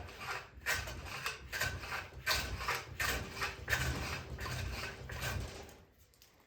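Stanley No. 6 hand plane taking a quick run of rasping strokes along a juniper handle blank, stopping about five and a half seconds in.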